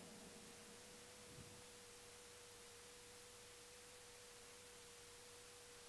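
Near silence: faint hiss with a thin, steady tone underneath.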